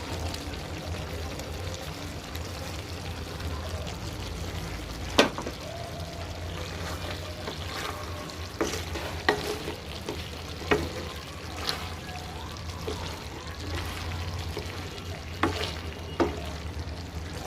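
Okra and shrimp frying in a pan while being stirred, with a steady sizzle and several sharp clinks of the spatula knocking against the pan.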